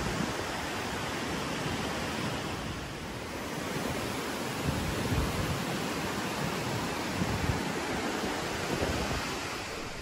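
Steady rush of wind and water, with irregular low gusts of wind buffeting the microphone.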